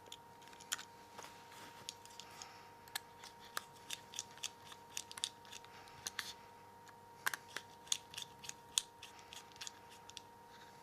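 Small star-type screwdriver driving tiny screws into a mobile phone's frame: a run of light, irregular clicks and ticks as the bit engages and the screws and phone parts are handled.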